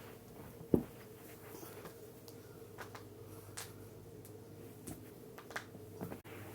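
Knuckles cracking: one sharp, loud pop a little under a second in, then several fainter pops and clicks over the following seconds.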